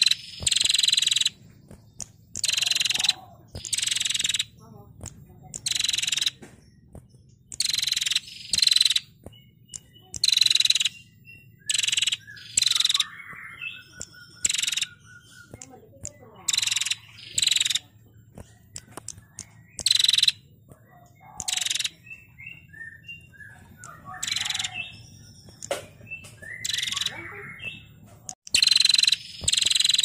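Female prenjak calling in its chattering 'ngetir' trill: loud, short, dry bursts repeated every second or two, with faint chirps between them.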